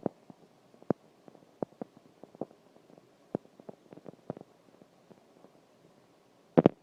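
Scattered light taps and clicks at irregular intervals, with a louder double knock near the end.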